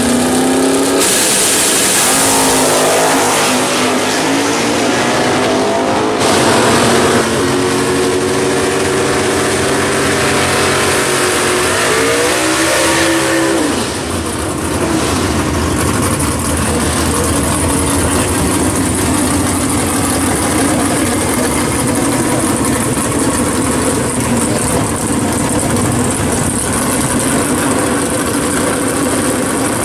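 Drag race cars' V8 engines at the strip: a car accelerating hard at full throttle, its engine note climbing in pitch and dropping back at each gear change. About 14 seconds in it gives way to a race engine running loudly and steadily.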